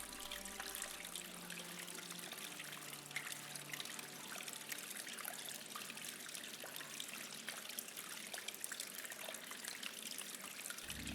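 Water trickling steadily, a fine crackling splash with no clear rhythm, with faint music tones fading out in the first few seconds.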